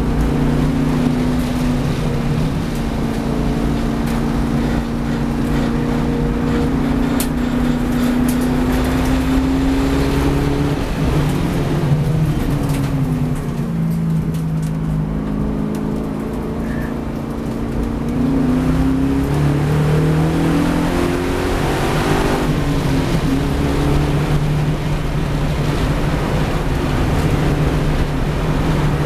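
Holden V8 race car's engine heard from inside the cabin, running hard on track. It drops in pitch as the car brakes into a corner about halfway through, then climbs through the gears in stepped rises as it accelerates away.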